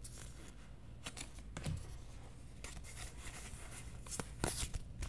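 Pokémon trading cards being handled and slid against each other in the hands: faint rubbing and flicking with a few sharper clicks, the loudest about four and a half seconds in.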